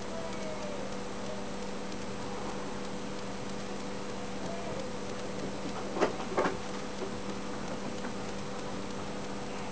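Steady room hum and hiss with a faint high-pitched whine, broken by two quick clicks about six seconds in.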